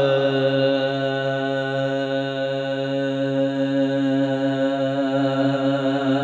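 A man's voice holding one long sung note at a steady low pitch with a slight waver: the drawn-out opening of an unaccompanied naat recitation.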